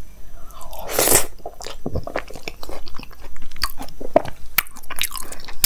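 Close-miked eating of a handful of dal, rice and pickle: the mouthful taken about a second in, then chewing with many short wet mouth clicks.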